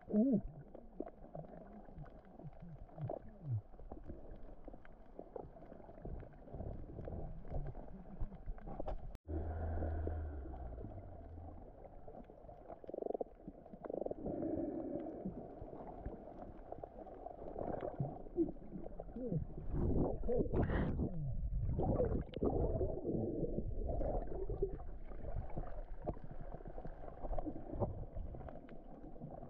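Muffled underwater sound of moving water picked up by a submerged camera: a low, uneven rumble with gurgles and bubbles, louder around twenty seconds in.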